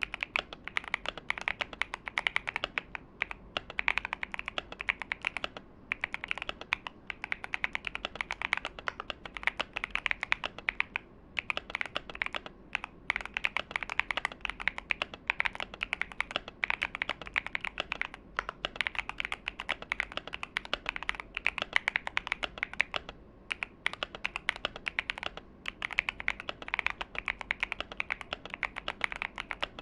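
Fast continuous typing on a top-mount mechanical keyboard with a brass plate and factory-lubed Gateron Baby Kangaroo tactile switches, a dense run of clacky keystrokes broken by a few short pauses.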